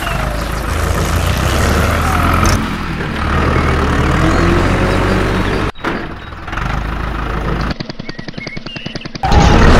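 Tractor engine running steadily, cutting off briefly about halfway through; near the end it turns into a fast, even chugging before the steady drone resumes.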